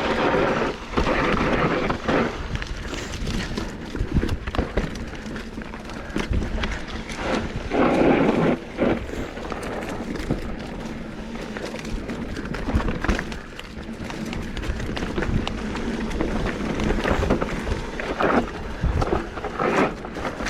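Mountain bike riding a dirt trail: steady tyre noise with the bike knocking and rattling over bumps, and louder surges of noise at the start and about eight seconds in.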